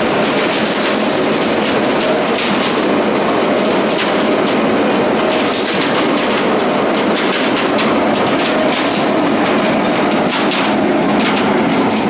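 Atlas RM 1050 mini concrete batching plant running: a loud, steady machine noise with irregular rattling ticks throughout.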